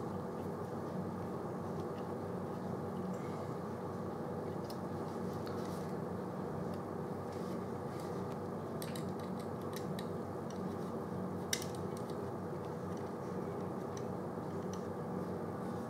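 Faint small metallic clicks and scrapes as a small hex key tightens the post screws on a rebuildable tank's deck, with one sharper click about three quarters of the way through, over a steady low background hum.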